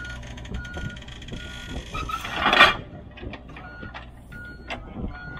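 Backup alarm on heavy equipment beeping steadily, about once every two-thirds of a second, over a running engine. Scattered knocks, and one loud noisy burst about two and a half seconds in.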